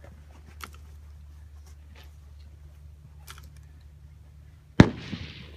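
One suppressed rifle shot near the end: a custom Tikka-action 6.5 Creedmoor rifle fired through a SilencerCo Harvester suppressor, a sharp crack with a short ringing tail. Before it, a steady low hum and a few faint clicks.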